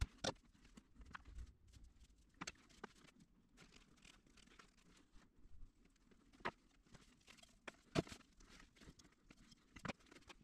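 Quiet handling noise of electrical cable and hand pliers being worked on wire ends: faint rustling with a handful of sharp clicks from the tool and wires.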